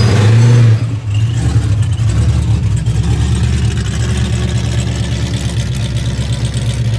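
Supercharged V8 of a 1964 Chevelle revving hard as the car rolls past, dropping off sharply just before a second in, then running steadily as it drives slowly away.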